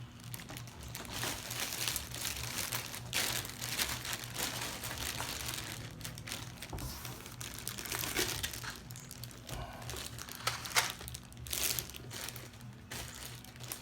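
Packaging crinkling and rustling in irregular bursts as a new subwoofer is unwrapped by hand.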